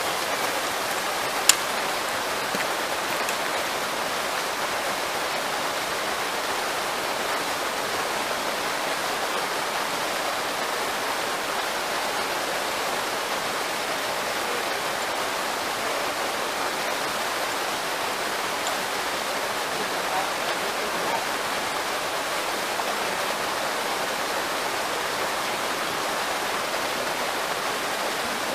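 Small waterfall in a rocky stream, water pouring steadily through a narrow sandstone channel with an even rushing. A single sharp click about a second and a half in.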